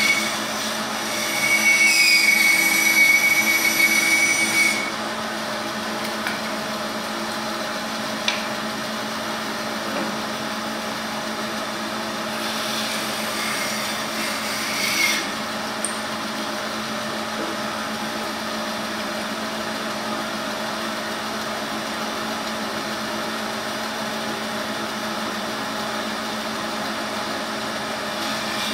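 Laguna woodworking bandsaw running with a steady hum while its blade cuts curves in a wooden block. It cuts twice: for about four seconds starting about a second in, and for a couple of seconds near the middle. Each cut is louder and carries a high-pitched whine.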